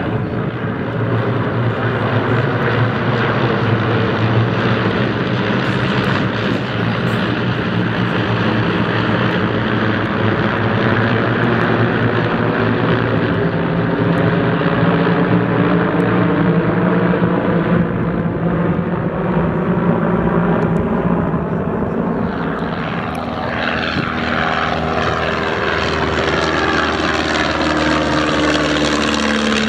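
Propeller engines of a formation of vintage light aircraft, de Havilland Moth biplanes among them, droning steadily overhead as a dense chord of engine notes. In the last several seconds a single biplane passes closer, its engine note sliding in pitch as it goes by.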